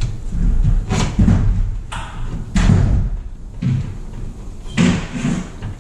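A screwdriver jabbed into drywall, about four sharp thuds a second or so apart over low handling rumble, probing for a buried electrical box.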